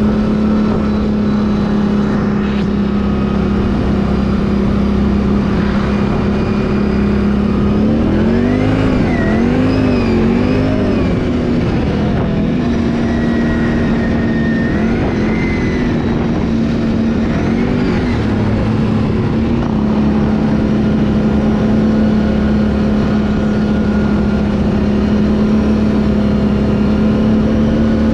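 Can-Am ATV engine running at a steady speed, with the throttle rising and falling a few times about a third of the way in and again past the middle.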